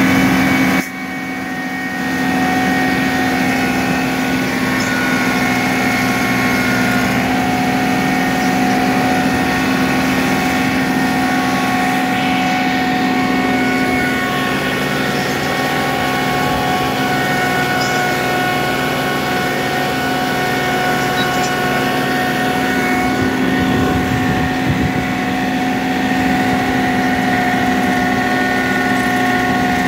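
John Deere 2038R compact tractor's three-cylinder diesel engine running steadily under load while pulling a two-bottom plow through the soil. The sound drops briefly about a second in, then holds steady.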